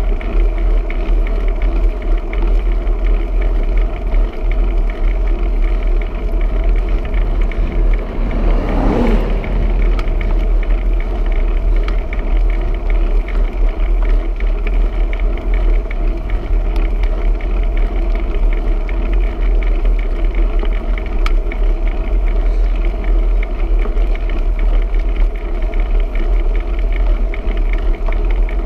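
Wind rumbling on the microphone of a camera carried on a moving bicycle, over steady road noise. About nine seconds in, a passing vehicle swells briefly and drops in pitch as it goes by.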